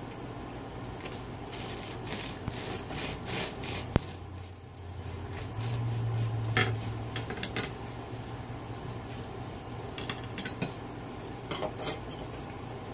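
Kitchen knife sawing through the crunchy crust of a freshly baked beer bread loaf in short rasping strokes, with a sharp click of the blade on the ceramic plate about 4 seconds in and a few more clicks near the end.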